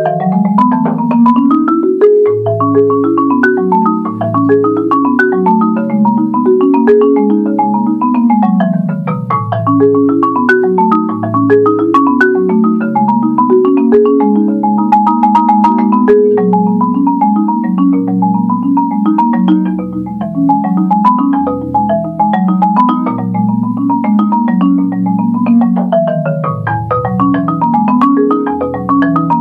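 Solo marimba played with four yarn mallets: a continuous stream of quick, rippling notes over deep bass notes in the instrument's low register.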